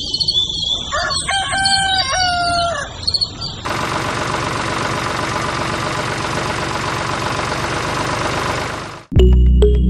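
Chickens and a rooster calling, a run of short calls that bend in pitch. About three and a half seconds in, a steady mechanical running noise from the miniature model tractor's small motor takes over, and cuts off abruptly when music starts near the end.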